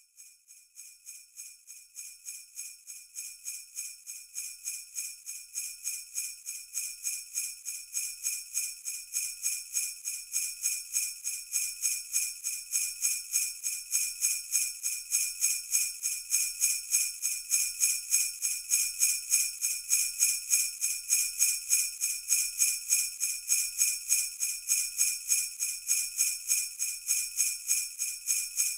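Sleigh bells shaken in a quick, even rhythm, swelling in from quiet over the first ten seconds or so and then holding steady.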